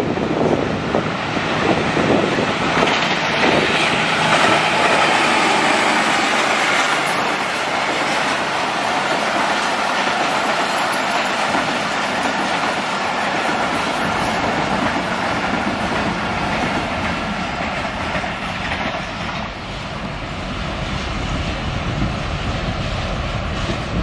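Passenger train hauled by a ZCU-20 diesel locomotive passing close by at speed. The locomotive comes past, then a long rake of coaches rolls by with a steady rush and the clatter of wheels over the rails.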